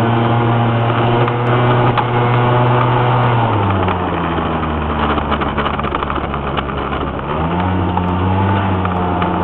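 Honda Gyro Canopy scooter's 50 cc engine pulling uphill under load. Its steady hum drops in pitch about three and a half seconds in and picks up again about seven and a half seconds in.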